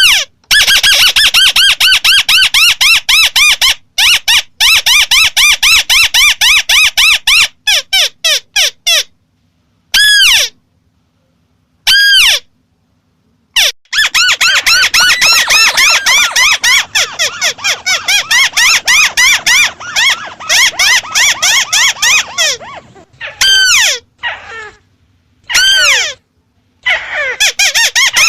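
White-browed crake (Amaurornis cinerea) calling: fast runs of short notes that each rise and fall in pitch, several a second, broken by a few gaps of a second or more that start and stop abruptly.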